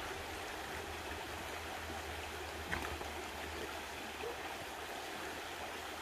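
Shallow mountain stream running over rocks, a steady babble of water, with one brief click about halfway through.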